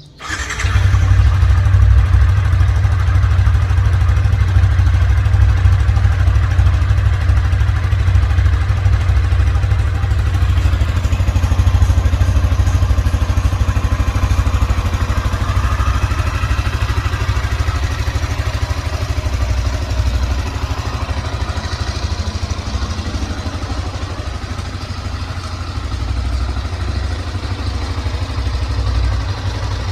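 Yamaha Sniper 155 VVA motorcycle's 155 cc single-cylinder engine on its stock exhaust starting up and then idling steadily.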